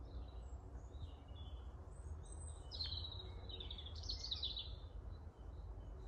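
Songbirds singing: scattered faint chirps, then a louder phrase of quick high notes from about three to four and a half seconds in. A low steady rumble runs underneath.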